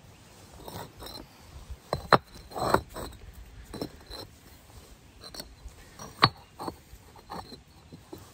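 Fire bricks knocking and scraping against one another as they are stood on end and pushed into line: a handful of sharp knocks, the loudest about six seconds in.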